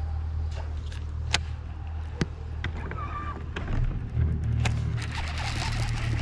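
Bow-mounted electric trolling motor running with a steady low hum, with three sharp clicks over it.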